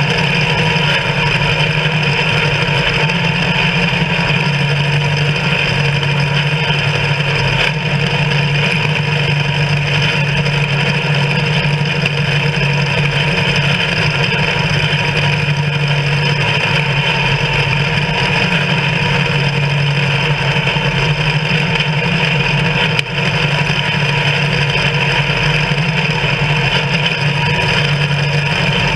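Allis-Chalmers WD tractor's four-cylinder engine running steadily under load while its mounted two-row corn picker works through standing corn.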